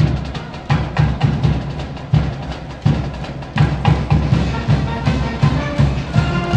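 Cheering-section brass band's drums beating a driving rhythm: deep bass-drum thumps with sharper percussive hits between them. Brass notes come in near the end.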